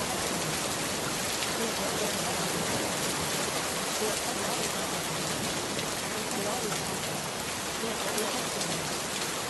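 Steady rain, an even hiss with a light patter of drops, with a faint voice beneath it: the backing track of a subliminal recording, masking the affirmations.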